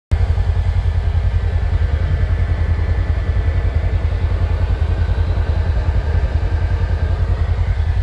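Vehicle engine running steadily, a low, evenly pulsing rumble heard from inside the cab.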